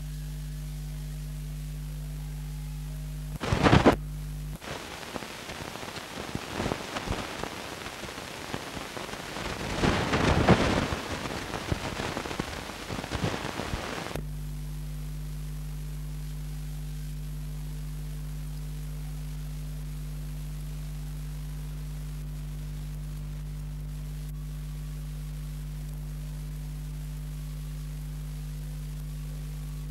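A steady low electrical hum. About three seconds in it is broken by roughly ten seconds of loud crackling, rumbling noise that cuts off suddenly, after which the hum returns.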